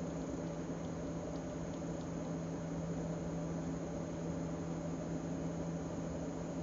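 A steady low hum with a hiss over it, even throughout, with a few faint ticks about a second and a half to two seconds in.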